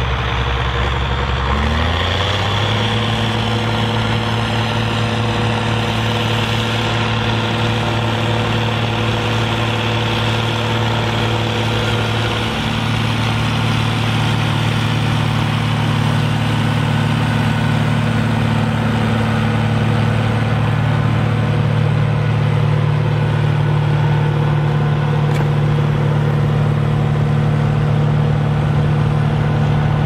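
County 1184 TW tractor's six-cylinder diesel engine running steadily under load, pulling a six-furrow plough through the soil. The engine note steps up about two seconds in and shifts again around the middle.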